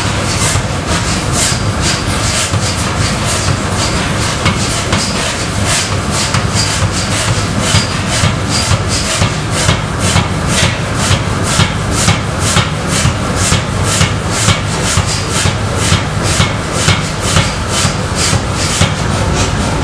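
Large power hammer forging a red-hot steel bar: a steady run of sharp blows from the ram, about three a second, over a steady low drone.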